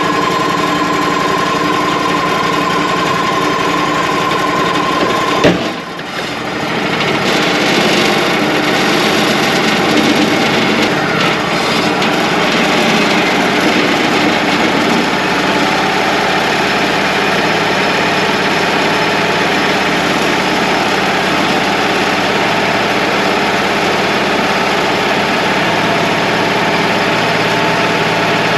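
Wood-Mizer LT35 portable sawmill's engine running steadily, with a steady whine that stops at a sharp clunk about five and a half seconds in.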